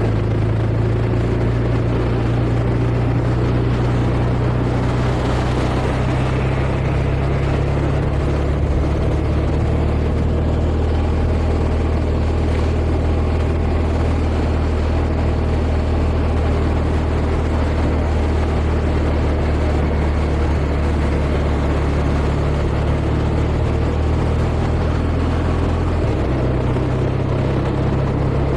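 Motorcycle engine running at a steady low pitch under road noise, with a slight change in pitch near the end.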